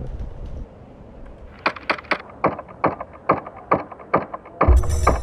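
HPA-powered airsoft AKM firing on semi-auto: a string of about a dozen sharp, quick shots, roughly three to four a second, starting about a second and a half in. A loud low rumble comes in near the end.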